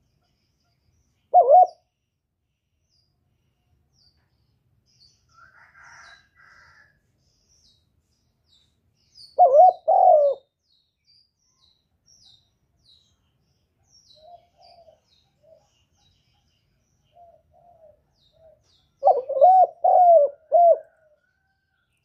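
Spotted dove cooing: a single short coo about a second in, a two-note phrase about ten seconds in, and a longer run of four or so coos near the end. Faint high chirping runs in between.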